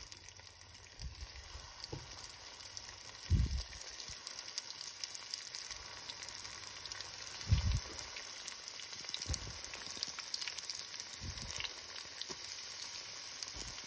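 Stuffed qatayef deep-frying in very hot oil in a small pot: a steady sizzle with fine crackling, broken by a few short, dull knocks.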